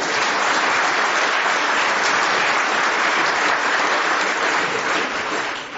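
A live audience applauding, starting suddenly and dying away near the end.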